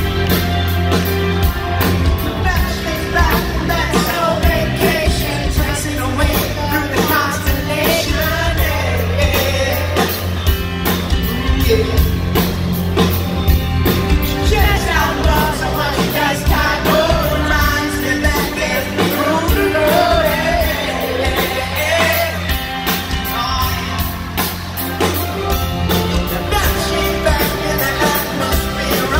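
Live pop-rock band playing, a male lead vocalist singing over drums, bass guitar and electric guitar.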